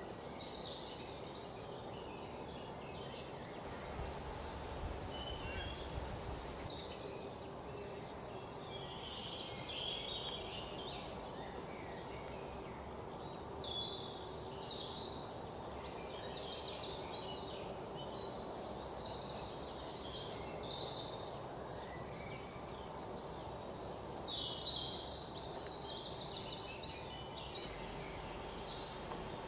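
Small birds chirping and calling over a steady outdoor hiss, with several quick trills in the second half.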